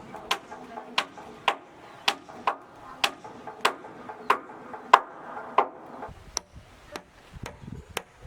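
Hammer striking a wooden plank in steady blows, a little under two a second. The last few blows are lighter.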